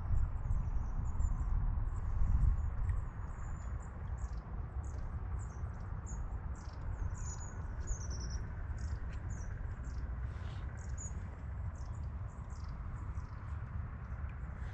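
Small birds calling: a steady run of short, very high-pitched chirps and brief warbling notes, over a low steady rumble.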